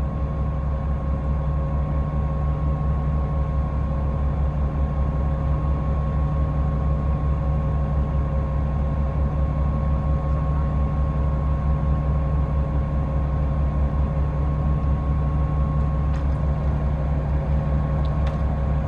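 Fishing boat's engine running steadily: an even low drone with a faint steady whine above it.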